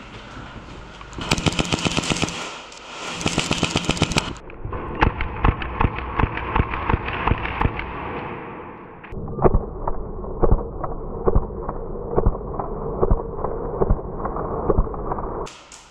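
Airsoft guns firing in a close-quarters exchange: two rapid bursts of sharp clacks, each about a second long, then a longer run of quicker shots, and from about nine seconds in scattered, duller clacks.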